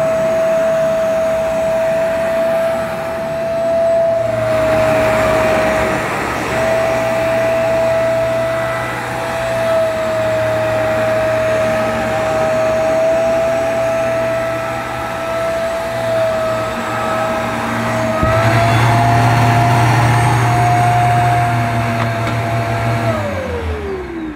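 Bissell PowerClean carpet washer running over carpet, a steady motor whine with a rushing suction sound. Near the end the motor's tone changes, the sign that the float valve has shut because the dirty-water tank is full. The motor is then switched off, its whine falling away.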